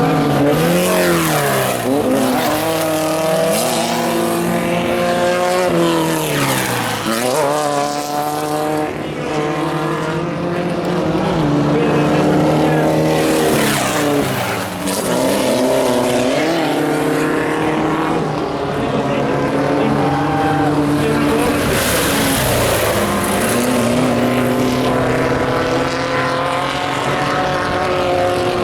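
Off-road race vehicles' engines running hard and passing. Their pitch swoops up and down again and again as they rev, shift and go by, with more than one engine heard at once.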